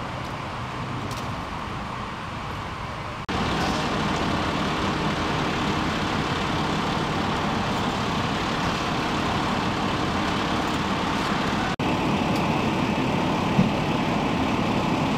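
Steady drone of vehicle engines and traffic noise. It steps up suddenly about three seconds in and drops out for a moment about three-quarters of the way through.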